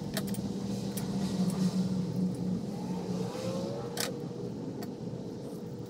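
A motor vehicle's engine running outside, a steady low drone that fades out about halfway through, with a few sharp clicks of hand tools being handled and set down on a metal step stool.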